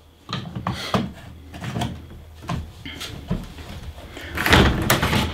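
Front cover of a moulded case circuit breaker being handled and slid onto its plastic case: scattered clicks and knocks, then a longer scraping clatter near the end.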